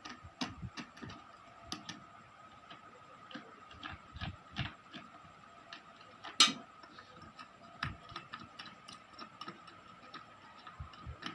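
Scattered metallic clicks and taps of hand tools and loosened parts as a pedestal fan is taken apart, with one louder sharp knock about six and a half seconds in.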